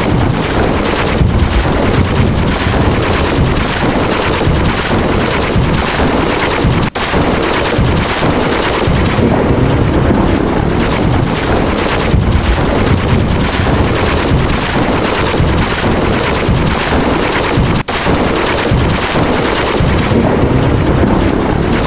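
A loud, dense barrage of overlapping lightning-crack and thunder sound effects, fused into a continuous rapid crackle with no gaps between strikes. It cuts out for an instant twice, about seven and eighteen seconds in.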